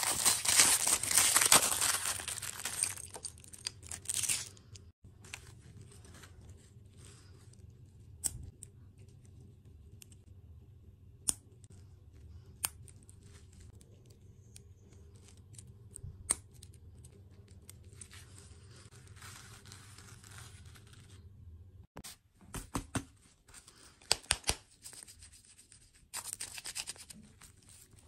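Packaging crinkling and tearing, loudest and continuous for the first four seconds, then scattered clicks and rustles with another burst of crinkling near the end, typical of a candy wrapper being opened.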